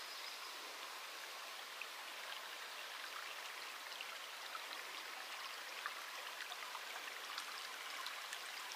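Faint, steady rush of running water, with a few faint ticks scattered through it.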